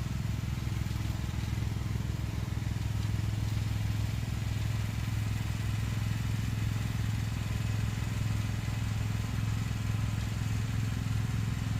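A vehicle engine running steadily at low revs, a deep even hum, as it slowly moves a shed on a trailer.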